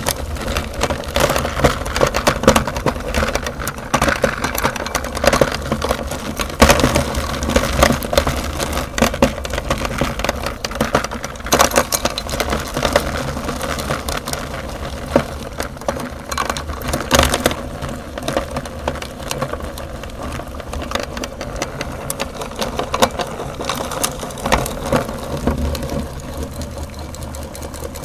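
Electric meat grinder motor running steadily under load while chocolate umbrellas are ground through it, with dense irregular cracking and crunching over the hum.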